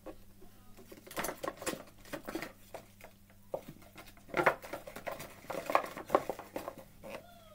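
A hand rummaging through paper tags inside a cardboard box: irregular rustling, tapping and clicking of card against card and the box.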